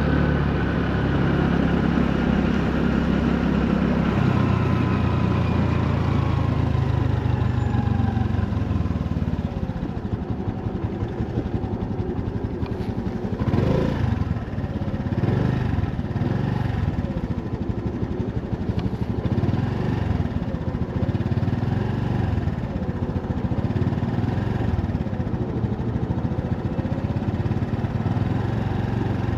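Honda Navi's small single-cylinder four-stroke engine running under way, its pitch steady for the first few seconds, then rising and falling again and again as it speeds up and slows.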